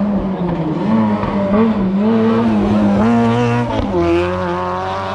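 Rally car at full throttle on a special stage, its engine note rising and falling through the gears as it approaches and passes. It is loudest about three seconds in as it goes by, then the pitch drops as it pulls away.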